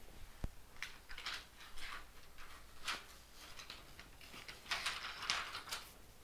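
Masking paper being pulled and peeled off a car's painted firewall: a string of short, faint rustles and crinkles, with a sharp click about half a second in.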